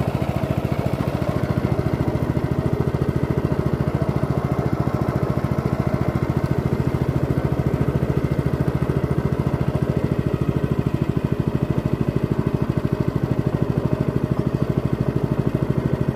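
Small engine of a narrow wooden boat running steadily at constant speed, a fast, even putter as the boat travels along the river.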